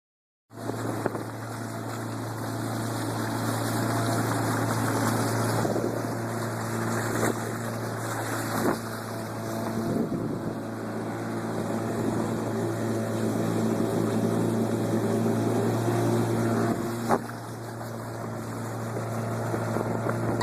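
Boat motor running at a steady hum, with wind on the microphone and a few sharp knocks.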